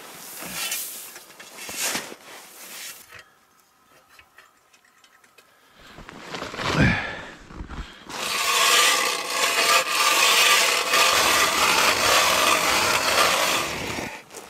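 Ice auger cutting through lake ice: a few scrapes, a pause, then a loud steady grinding from about eight seconds in until near the end.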